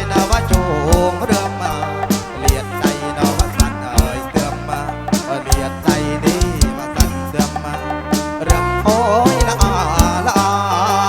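Kantrum band playing an instrumental passage: a steady, driving drumbeat under a melody line that bends and slides in pitch.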